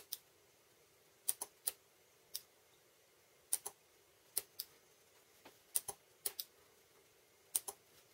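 Sharp, dry clicks, many in quick pairs, at an uneven pace: a microswitch trigger being pressed and released over and over, with the small relays on the spot-welder timer board clicking as the circuit is tested.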